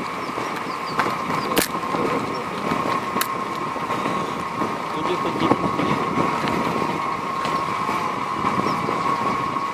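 A car rolling along with steady tyre and running noise and a constant hum. Its brake pads are freshly sanded free of the raised ridge that the grooved disc had worn into them, so they no longer whistle. A couple of sharp clicks come in the first few seconds.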